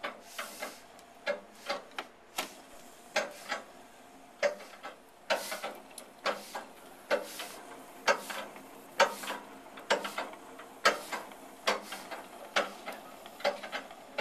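Treadle sewing machine being pedalled, running on a belt of 3/16-inch nylon clothesline, its treadle linkage and works clicking and knocking about twice a second in an uneven rhythm.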